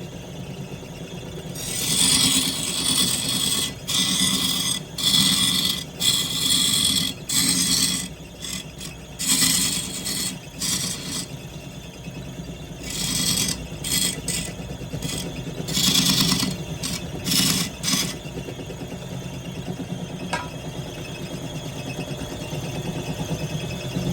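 Wood lathe running with a steady motor hum while a tool scrapes against the spinning wood in repeated strokes of about a second each. The scraping stops well before the end, leaving only the lathe running.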